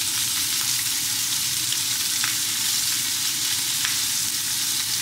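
Homemade seafood boil sauce sizzling steadily in a stainless steel pan as it is stirred with a plastic spoon, with a few light taps of the spoon against the pan.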